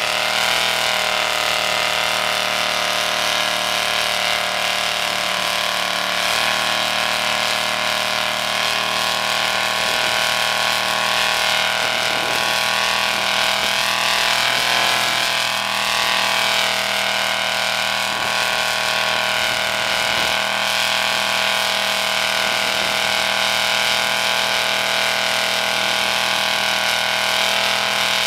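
Rat-rod hearse's engine held at high, nearly steady revs through open upright exhaust stacks during a long burnout, the rear tyre spinning on the pavement. The pitch sags and recovers slightly a few times.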